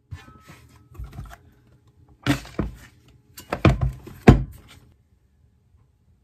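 Handling noise on a desk: a tablet's folding case cover flapped over and objects set down, knocks and rustles in three bursts, the sharpest knock a little after four seconds.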